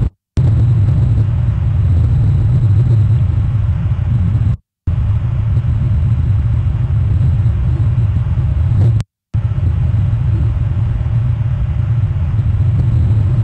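Steady low rumble of a cruise ship's engines passing by, broken by short audio dropouts about every four and a half seconds.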